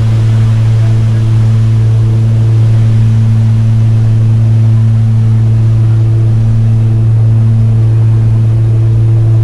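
Airplane engines running steadily, heard inside the cabin: a loud, constant low hum with overtones that swell and fade every couple of seconds.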